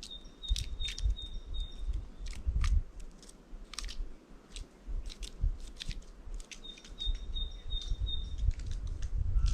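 Birds pecking and cracking seeds at a feeder: a scatter of sharp clicks and taps with low thumps. Twice a small bird gives a quick run of short, high notes, all at one pitch.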